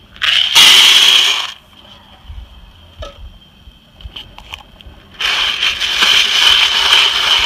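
Green coffee beans poured into a preheated Whirley Pop popcorn popper, a loud rattling rush lasting just over a second. A few scattered clicks follow, then from about five seconds in the crank-driven wire stirrer churns the beans around the hot pan in a steady rattle.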